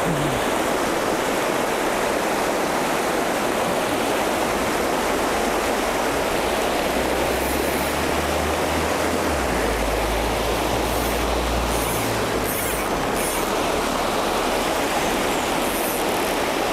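Fast river water rushing over rapids: a steady, unbroken roar of flowing water.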